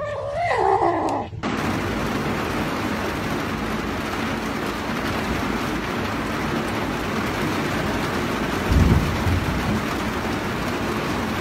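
A kitten gives a cry that wavers up and down in pitch for about a second and a half. Then heavy rain pours steadily, with a brief low rumble of thunder about nine seconds in.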